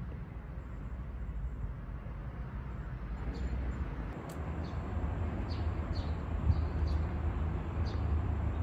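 Outdoor ambience: a steady low rumble that grows louder about halfway through, with faint short chirps of small birds scattered over it.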